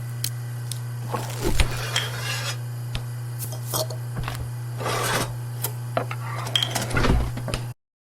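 Metal cooking utensils clinking and clattering against pots and pans, over a steady low hum. The sound cuts off suddenly near the end.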